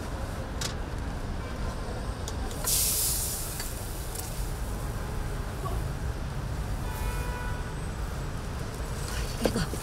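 Road traffic rumbling steadily, with a loud hiss lasting under a second about three seconds in.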